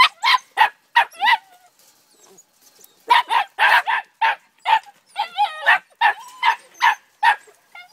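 Three-month-old puppies yapping in quick, short, high barks, a few at a time. The barking stops for about a second and a half, then starts again around three seconds in, with a brief whine in the middle.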